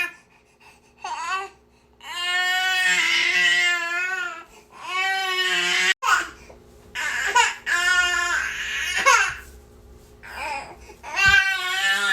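Baby crying: a series of wailing cries, each about one to two seconds long with wavering pitch, broken by short pauses.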